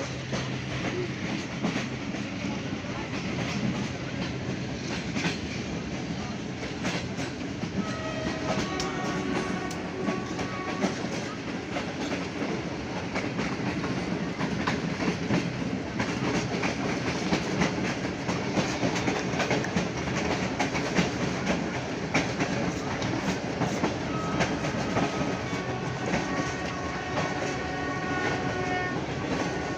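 Passenger train running, heard from inside a coach at an open window: a steady rumble with wheels clicking over the rail joints. Faint drawn-out tones at several pitches come in about eight seconds in and again near the end.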